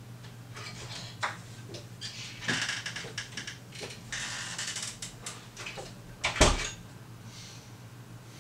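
A door being opened, with handle clicks, rustling and footsteps, then swung shut with a loud thud about six and a half seconds in. A steady low hum runs underneath.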